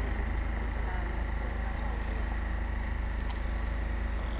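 Steady outdoor street ambience: a constant low rumble with an even hiss above it and no distinct event.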